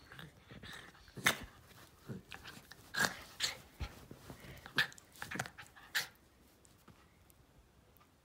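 Jack Russell–Fox Terrier cross play-attacking a hand, making about five short, sharp noises in the first six seconds.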